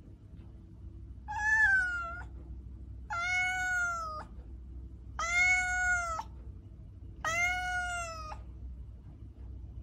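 Domestic cat meowing four times, each meow drawn out about a second and spaced about two seconds apart, its pitch arching up and then sliding down at the end.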